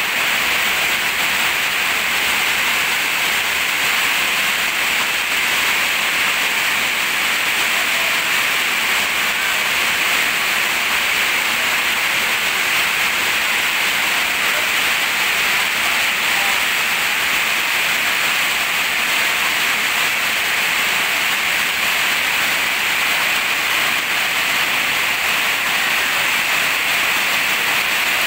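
Heavy rain falling steadily as a dense, even hiss, heard from under a corrugated metal shed roof.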